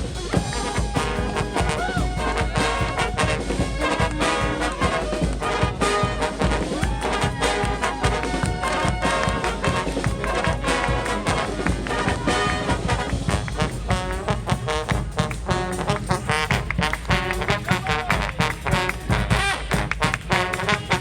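A brass street band playing live: horns over a steady rhythm of drum strikes.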